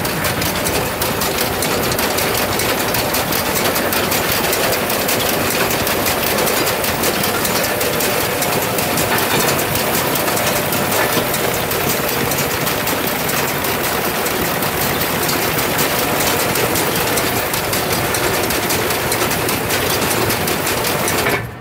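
Round baler running, driven by a tractor: a steady engine hum with a fast, continuous mechanical rattle from the baler's drive.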